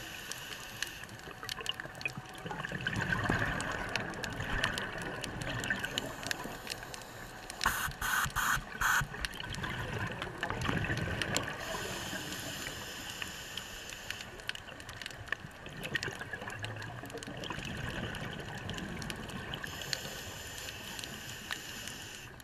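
A scuba diver's exhaled bubbles gurgle underwater, heard through the camera housing and swelling every several seconds. About eight seconds in there is a quick run of four or five sharp clicks.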